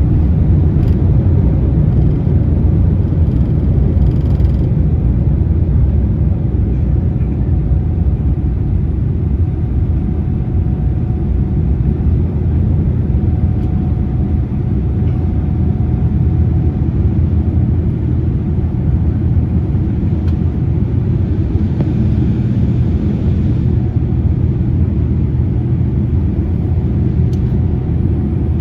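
Steady low rumble of an airliner's engines and airflow, heard from inside the cabin.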